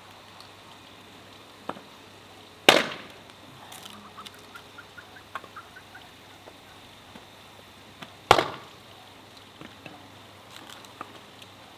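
Hatchet chopping short lengths of wooden board into kindling: two loud chops about five and a half seconds apart, with a lighter knock before the first and small knocks of wood pieces in between.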